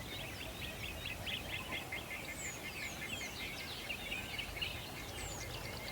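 Songbirds chirping and twittering in a dense overlapping chorus of quick calls, with a few thin, high whistles that fall in pitch, over a steady background hiss.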